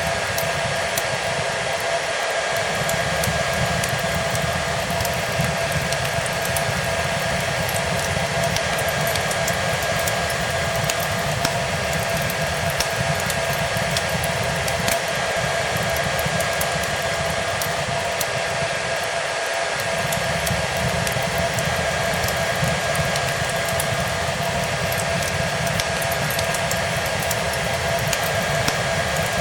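A hair dryer running steadily, a constant rush of air with a steady motor whine, blended with a wood fire crackling in scattered small pops.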